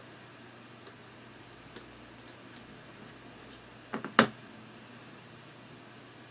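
Cardboard board-game terrain pieces being handled: a few faint ticks, then two sharp clicks close together about four seconds in.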